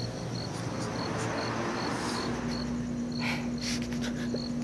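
Crickets chirping steadily, about two or three short high chirps a second, with a man's sniffs and shaky breathing over them. A low steady hum starts about two seconds in.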